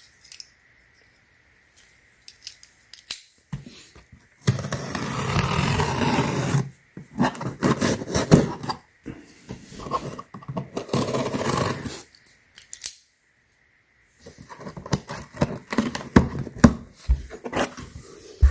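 Packaging being opened by hand: a few seconds of rustling and tearing, a second stretch of it later, and a run of clicks and knocks as the contents are handled near the end.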